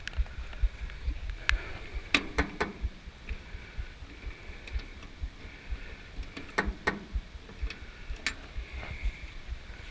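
Handling work on metal parts: a few scattered sharp clicks and knocks, in two small clusters, over a low irregular rumble of wind on the microphone.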